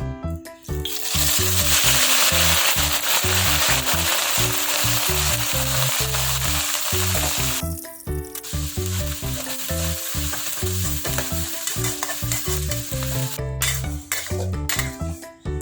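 Food sizzling in a hot pan, starting about a second in, easing off briefly near the middle and picking up again. Background music plays underneath.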